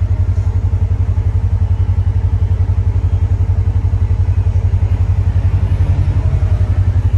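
Idling engine of a Polaris Ranger UTV, heard from inside its cab: a steady, fast low throb.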